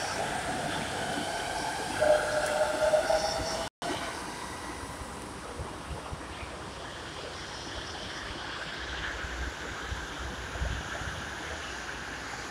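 Bombardier Innovia Metro 300 train running past a platform. Its rushing noise carries a whining tone that swells loudly about two seconds in. After a brief cut-off, the steadier, quieter running noise of another train comes along the elevated track as it approaches the station.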